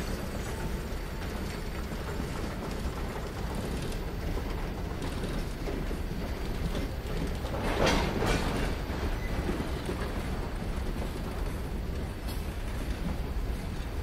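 Freight train rolling on the rails, its wheels and cars clattering over a steady low rumble. About eight seconds in comes a louder burst of metallic clatter lasting about a second.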